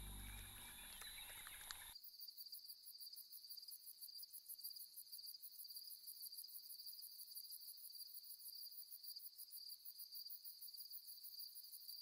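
Faint chorus of crickets trilling: a steady, high, rapidly pulsing trill that sets in about two seconds in, after a lower sound fades out.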